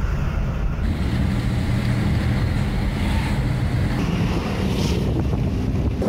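Wind buffeting the microphone of a camera held at a moving car's window, over a steady rumble of road noise.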